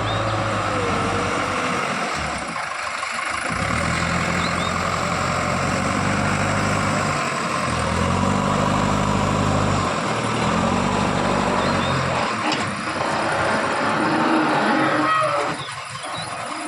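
JCB 3DX backhoe loader's diesel engine working under hydraulic load, revving up and dropping back several times as the digging and loading goes on, with a steady hiss-like hydraulic and mechanical noise over it. It eases off near the end.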